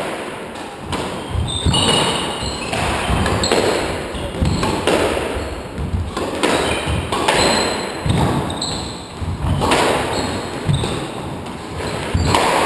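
Squash rally: the ball is struck by rackets and smacks off the court walls in sharp, echoing hits, about one or two a second at an irregular pace, with short squeaks of court shoes on the wooden floor between them.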